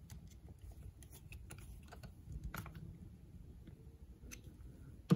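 Flat-blade screwdriver turning a small air-horn screw into a Rochester Quadrajet carburetor, making faint, irregular metal clicks and scrapes, with one sharper click near the end.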